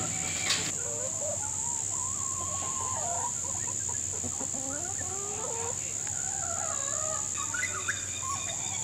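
Domestic hens clucking softly, a run of short, wavering calls, over a steady high-pitched drone.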